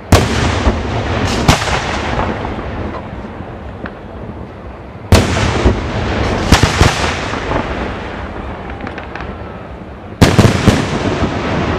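Aerial firework shells bursting overhead: three big booms about five seconds apart. Each is followed by a few sharp cracks and a long rolling echo that dies away.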